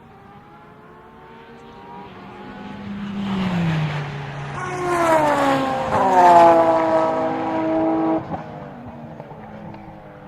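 Sports-prototype and GT race cars passing in quick succession at full racing speed. The engine note falls as each car goes by. The sound is loudest in the middle and drops off sharply about eight seconds in.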